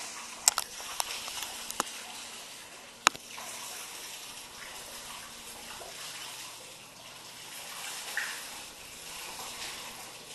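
Steady rush of running water in a crocodile's indoor pool, with a few sharp clicks in the first two seconds and a louder one about three seconds in.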